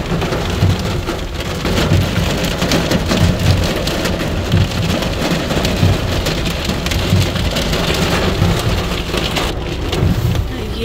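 Hail and heavy rain pelting a car's roof, windscreen and mirrors, heard from inside the car: a loud, steady, dense patter of small ticks.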